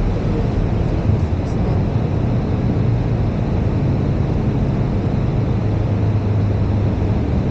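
Boeing 737 cockpit noise during the landing roll just after touchdown: a steady, loud rumble of the engines, rushing air and the wheels on the runway, with a low hum running underneath.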